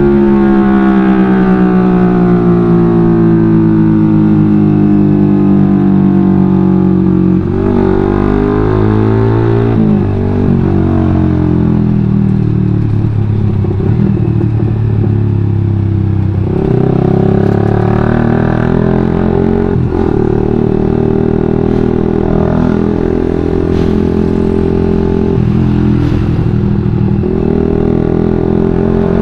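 Suzuki GSX-R150 single-cylinder engine running through a WRX GP5 K1 aftermarket full-system exhaust while riding. The engine pitch falls slowly over the first several seconds as the bike slows, then rises and drops several times as the rider accelerates and changes gear.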